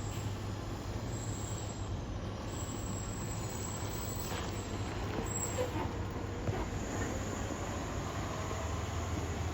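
A vehicle's engine running steadily with a low hum under a haze of road noise.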